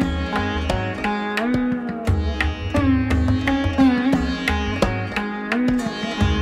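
Background music: a plucked-string melody with sliding notes over a steady beat and bass.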